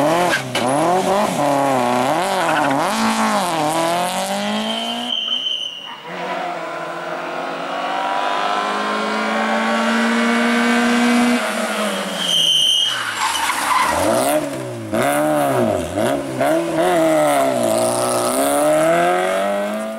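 Rally car engines driven hard. First the revs swing up and down in quick rises and falls as a BMW rally car slides through a hairpin on loose gravel. After a short break comes one long pull with the pitch climbing steadily, then the revs of a Peugeot 106 rally car rise and fall quickly again through a tight corner.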